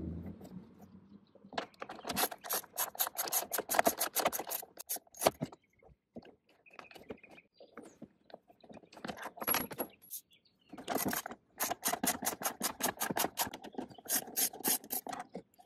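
Hand ratchet clicking in quick runs, in about four bursts with pauses between, as 10 mm bolts are backed out of a grab handle's mounts.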